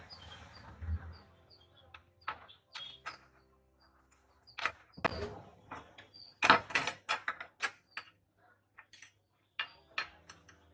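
Irregular sharp clicks and clinks of small metal parts and tools being handled and set down, with a quick cluster of louder knocks about six to seven seconds in.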